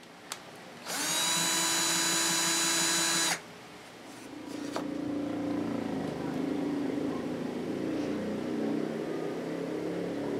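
Cordless drill running at a steady whine for about two and a half seconds, drilling into a small plywood block, stopping abruptly. Quieter, uneven handwork noise follows.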